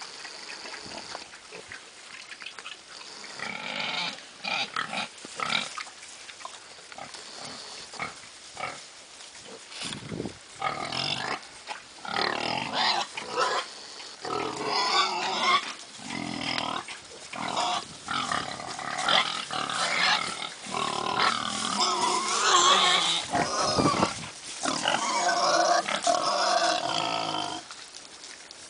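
Yorkshire/Duroc cross piglets, about three weeks old, calling in many short, overlapping squeals and grunts, getting louder and busier from about ten seconds in.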